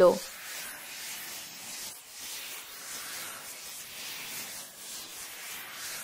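Cartoon sound effect of magic vines wrapping around a character: a steady rustling hiss with slow swells.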